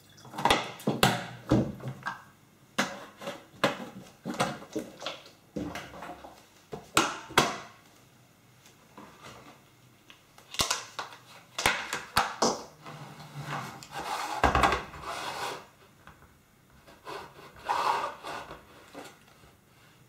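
A plastic Tefal electric kettle being handled: irregular knocks and clicks of plastic against the worktop and power base, with a few short scraping sounds.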